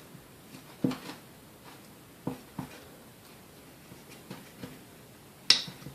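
Scattered light clicks and knocks of small metal and rubber parts and tools being handled during disassembly of a coffee grinder, about seven in all, with the sharpest knock near the end.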